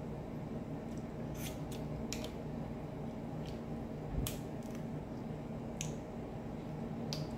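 Crab leg shells cracking and snapping as they are broken open by hand: several sharp, separate cracks a second or so apart. A steady low hum runs underneath.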